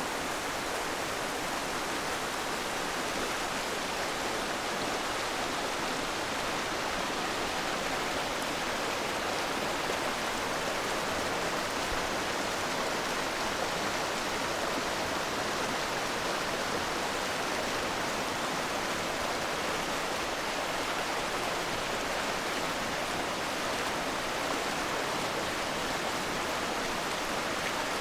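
Steady rushing wind and road noise on a camera mounted to a moving recumbent trike, even and unbroken throughout.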